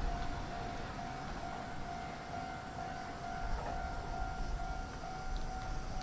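Japanese railway level-crossing alarm ringing steadily on one high tone, with a low rumble underneath.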